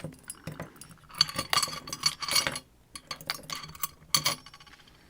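Small metal parts of a disassembled Dom RS8 lock clicking and clinking as they are handled, a run of quick light clinks from about a second in until near the end.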